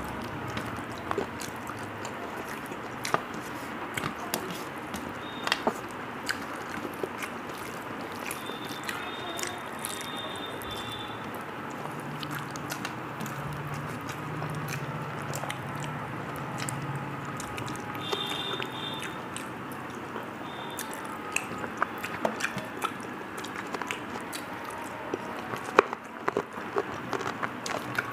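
Wet eating sounds of rice and fish curry being mixed by hand on a steel plate and chewed: scattered squelches, smacks and small clicks over a steady background hiss.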